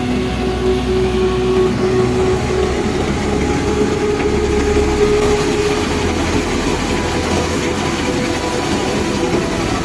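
Tractor-driven mustard thresher running steadily while mustard stalks are fed into its drum: a loud, dense mechanical rumble.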